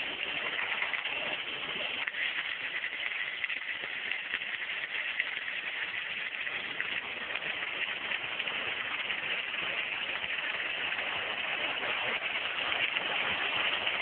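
Gantry submerged-arc welding machine welding a steel plate seam: a steady, unbroken hiss.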